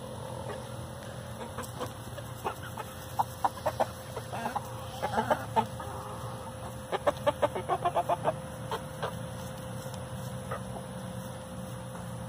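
Hens clucking while they feed, short clucks coming in quick runs, one cluster a few seconds in and a denser one past the middle.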